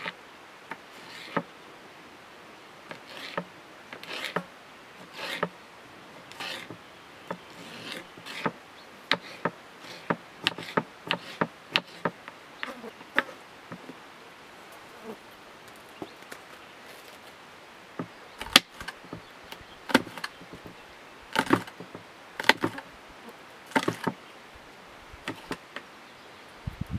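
Knife chopping tomato and green pepper on a wooden cutting board: irregular sharp taps of the blade on the board, coming in runs with a pause of a few seconds in the middle.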